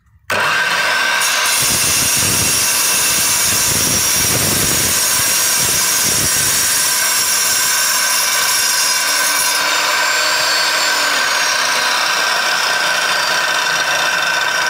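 Angle grinder with an abrasive cutting disc, mounted as a pendulum chop saw, switching on sharply and cutting through a brick. The sound surges and grinds under load for the first half, then runs on more lightly as the disc clears the cut.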